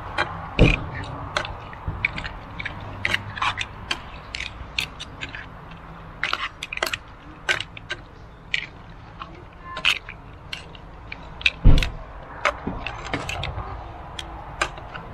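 Irregular clacking and clicking of mussel shells and a utensil in a pan as pasta with mussels is stirred, with two louder knocks against the pan, about a second in and again near the end.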